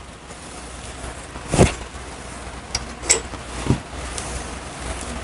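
A few separate sharp metal clicks and knocks, the loudest about a second and a half in, from a clutch hub and its brass rivets being handled and set in place at a riveting tool clamped in a bench vise.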